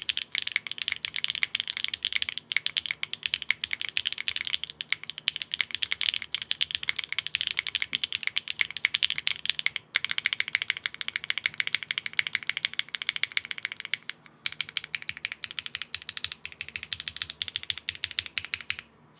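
Fast, continuous typing on a Neo65 mechanical keyboard with HMX Xinhai switches on a polypropylene (PP) plate with no foam: a dense run of key clacks. It pauses briefly three times and stops just before the end.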